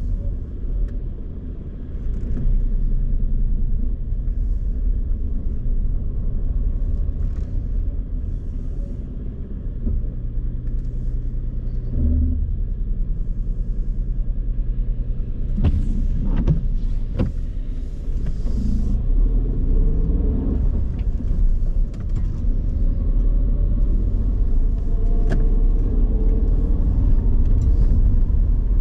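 Car driving on city streets: a steady low engine and road rumble, with a few sharp knocks about halfway through. Near the end the engine pitch rises as the car speeds up.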